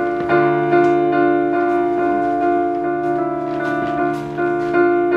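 Keyboard playing held, sustained chords that change every second or so, an accompaniment vamp leading into a song before the singing starts.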